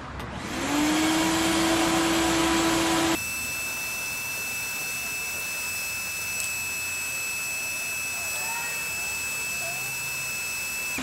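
Vacuum cleaner starting up, its motor whine rising to a steady pitch within about a second, then running as a brush nozzle on its hose sucks sawdust off a freshly routed wooden cabinet door. About three seconds in, the sound switches abruptly to a quieter, steady run with a higher whine.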